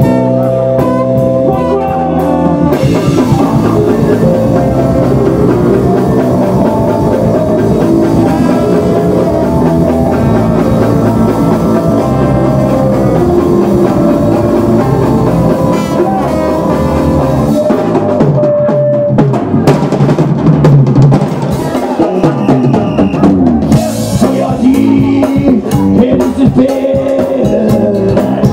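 Live band playing an instrumental passage, driven by a drum kit with electric bass and percussion.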